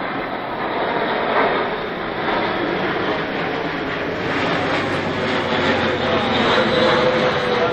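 Large high-wing military transport plane flying overhead, its engines giving a steady drone with a hum that grows stronger and a little louder in the second half.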